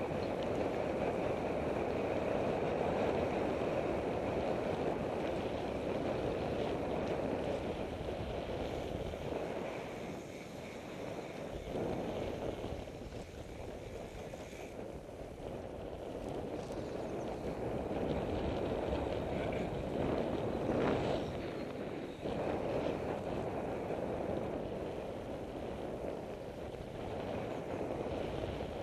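Wind rushing over the microphone with road noise from moving along a lane at speed, easing off for a few seconds around the middle before building again.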